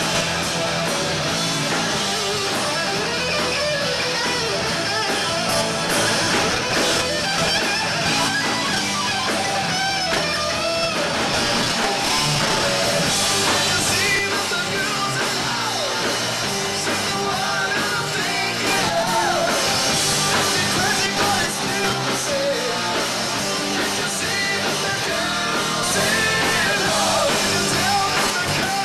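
Rock band playing live, with electric guitars to the fore over bass and drums, heard from among the crowd.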